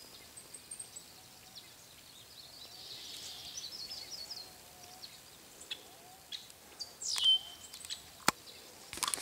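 Small birds chirping and calling over quiet outdoor background noise, with short high warbles and a louder call falling in pitch about seven seconds in. A single sharp click comes near the end.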